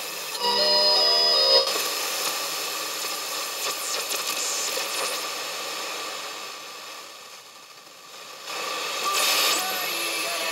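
Homebrew regenerative receiver's loudspeaker giving a rushing hiss of static as it is tuned across the band, with a few steady tones in the first second and a half and faint whistles gliding past later. The regeneration is set too high, so the detector is self-oscillating. The hiss dips quieter for a moment around eight seconds in.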